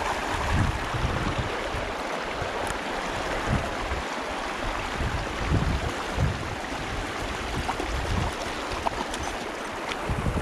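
Shallow mountain river running over rocks and gravel: a steady hiss of flowing water, with irregular low buffeting on the microphone.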